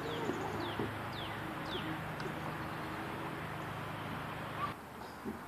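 Birds chirping: short, falling calls repeated about every half second, over a steady background noise that drops away abruptly near the end.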